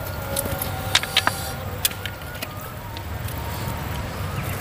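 Steady low rumble of passing traffic, with a few faint steady whining tones over it. Several short sharp clicks of mouth smacking while eating come about a second in and again just before two seconds.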